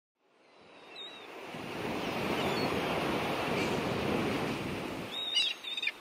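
Small waves breaking and washing over a stony shore, a steady surf wash that fades in over the first second or two and eases off near the end. A few short, falling bird calls come near the end.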